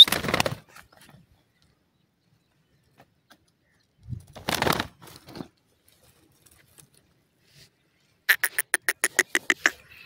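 Grey francolin giving a quick run of about a dozen short, sharp calls near the end, about eight a second. Before it come two brief rustling scuffles, one at the start and one about halfway through.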